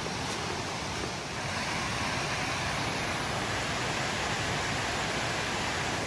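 Steady rush of a waterfall running high, the water sliding over the rock brink close by.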